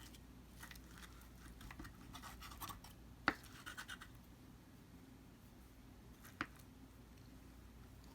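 Faint scraping and light tapping of an eating utensil on a plate as food is served or cut for tasting. Two sharp clicks stand out, about three seconds in and again about six and a half seconds in.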